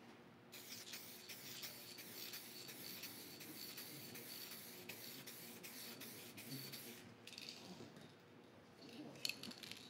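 Aerosol spray can of 2K gloss black epoxy top coat hissing faintly and steadily as a coat is sprayed, stopping about 7 s in. A few small clicks follow near the end.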